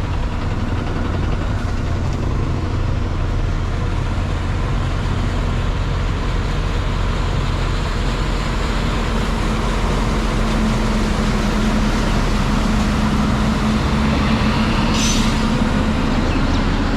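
A bus engine running steadily under a constant rush of road and tyre noise. A low hum joins about halfway through, and a short hiss sounds near the end.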